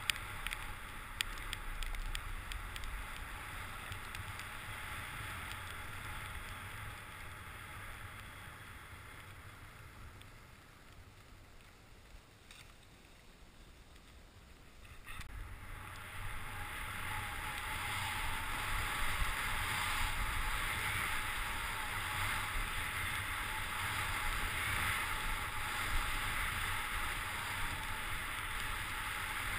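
Skis running fast over groomed snow, with wind rushing over the camera's microphone: a steady rushing noise that drops quieter about ten seconds in and grows louder again from about sixteen seconds.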